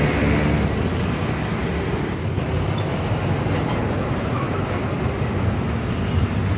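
Steady hum of road traffic and vehicle engines, with no distinct events.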